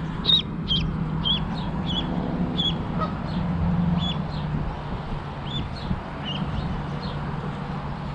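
A lone duckling peeping: short, high calls, rapid at first, then spaced further apart, over a low steady hum. These are the distress calls of a duckling separated from its mother.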